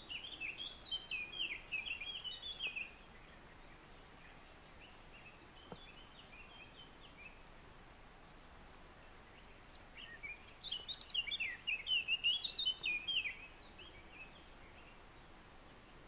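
A small songbird singing: a quick phrase of chirping notes at the start, a fainter phrase a few seconds later, and a louder, fuller phrase starting about ten seconds in, against a quiet background.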